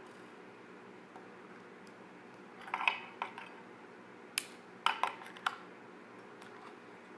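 Scattered sharp metallic clicks and clinks from handling a Zippo lighter and the gun-oil container while the lighter is being filled. A small cluster comes a little under three seconds in, then single clicks around four and a half to five and a half seconds.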